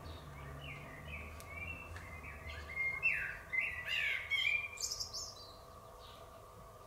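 A bird chirping and singing in a run of short gliding notes for about five seconds, over a faint low hum, then falling quiet.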